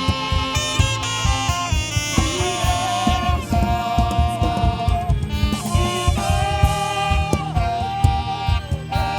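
Live band music led by a saxophone playing held, wavering melody notes over a busy drum and bass beat.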